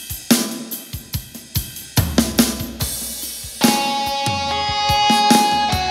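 Yamaha arranger keyboard playing a song intro: a drum-kit pattern of kick, snare and cymbal hits, joined about three and a half seconds in by sustained chords.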